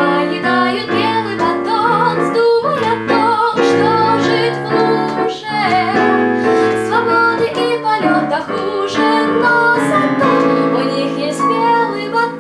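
A young woman singing a song, accompanied by chords on a digital piano.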